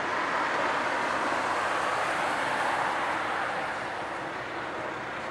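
Road traffic passing over a concrete road bridge: a rushing noise that swells to a peak a couple of seconds in and then fades away.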